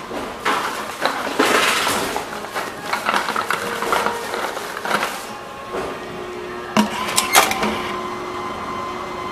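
Envipco CF-1500 reverse vending machine working bottles through: its mechanism whirs and the bottles clatter for the first five seconds or so. It then settles into a steady hum, with a couple of sharp clicks.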